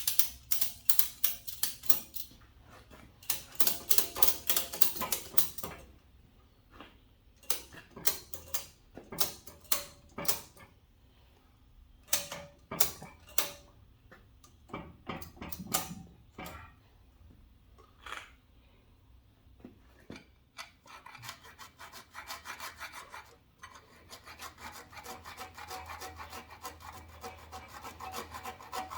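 Hand file rasping on the steel lip of a Ford 390 FE oil pan, in short bursts of quick strokes with pauses between, then a steadier, faster run of strokes near the end. The lip is being filed back because it hits the header pipe.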